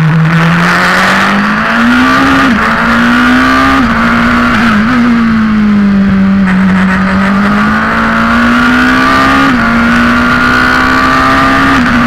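Formula Two single-seater's turbocharged four-cylinder engine at race speed, heard from the cockpit. The engine note climbs and falls through the corners, with several quick gear changes where the pitch drops sharply, about two seconds in, near four and five seconds, and twice near the end.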